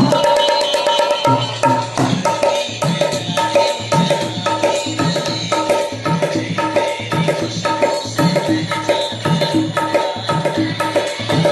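Dholak played in a quick, steady rhythm along with the song's accompanying music, its held melodic notes under the drum strokes. The drumming comes in right at the start.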